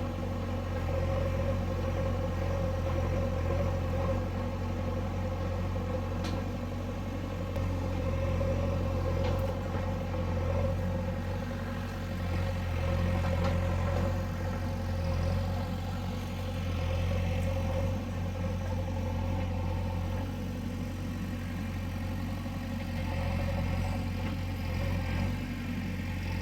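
JCB backhoe loader's diesel engine running steadily with a deep hum, swelling a little now and then as it works.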